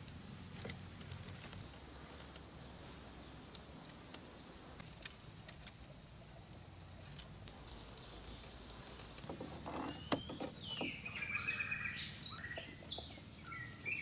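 Woodland insect and bird sounds: very high, quick chirps repeating two or three times a second, broken by two long stretches of a loud, steady, shrill insect drone. A bird calls with gliding notes near the end of the second drone.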